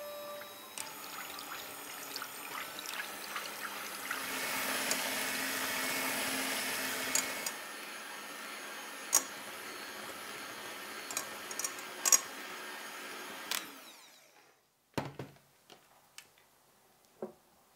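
Electric hand mixer whipping cream in a glass bowl: a steady motor whir with occasional sharp clicks, louder for a few seconds in the middle. It stops about fourteen seconds in, followed by a few light knocks.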